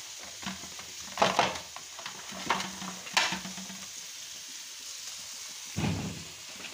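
Hands rubbing spice mix into raw rib meat in an aluminium basin: wet squishing with scattered sharp clicks of meat and fingers against the metal. A heavier thud comes near the end.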